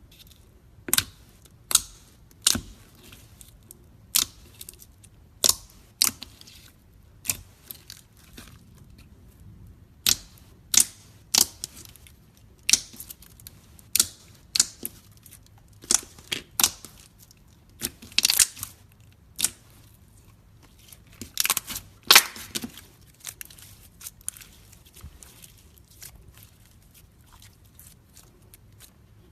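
Metallic slime being squeezed and poked by hand, giving sharp clicks and pops of trapped air about every second or two, with a few longer crackling runs past the middle.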